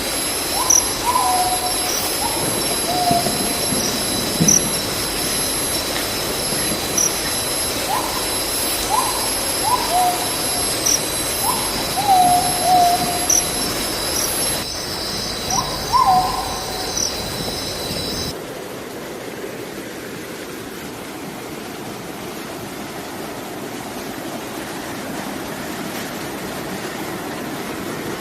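Rushing stream water, a steady hiss, with insects' continuous high-pitched buzzing and repeated short animal calls that drop in pitch, about a dozen of them. The buzzing and calls cut off abruptly about two-thirds of the way through, leaving only the water.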